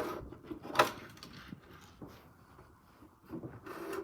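A few knocks and clicks of toy train-set pieces being handled, two sharp ones near the start and fainter ones after.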